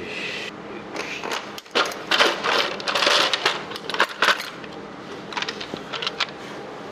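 Metal hand tools and loose engine parts clinking and rattling in quick, irregular clicks and scrapes, busiest in the middle few seconds.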